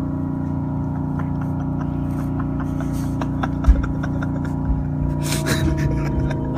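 Background music: a held, sustained chord with a light, even ticking rhythm for a while, and a single low thump about midway.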